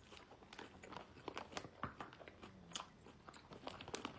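Close-up chewing of a crunchy mouthful with tortilla chips, irregular crisp crunches several times a second.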